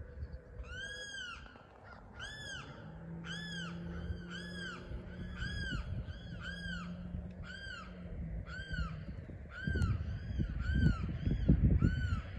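A bird calling over and over, more than a dozen short clear calls, each rising and then falling in pitch, about one and a half a second. Low rumbling noise joins in during the last few seconds.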